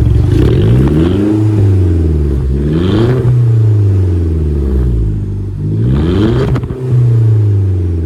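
Audi A1 engine revved three times from idle, each rev climbing then falling back, through a test exhaust fitted with a louvered ('ceja') resonator in place of the stock rear muffler.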